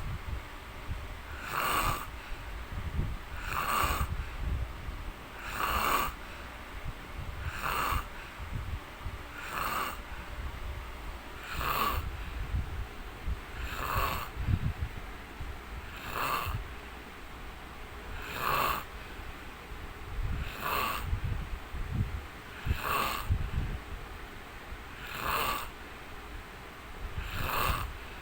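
A man snoring in his sleep, one snore about every two seconds in a steady rhythm.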